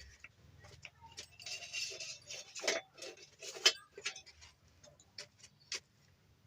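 Scattered small clicks and knocks of parts and tools being handled on a workbench, with a short scraping rustle about one and a half seconds in.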